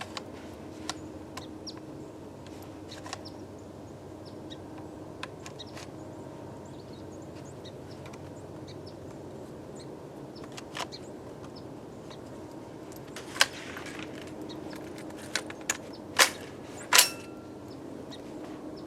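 Clicks and clacks of a Centurion BP12 shotgun being handled, with scattered small clicks and then a run of five louder, sharper clacks near the end, the last the loudest.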